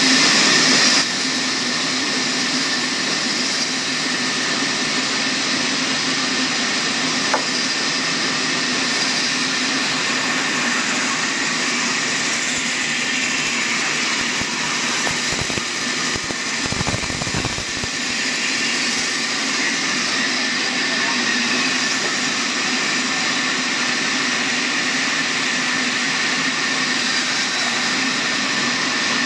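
Horizontal band sawmill running steadily as its blade cuts lengthwise through a large log: a constant machine hum with a steady high whine.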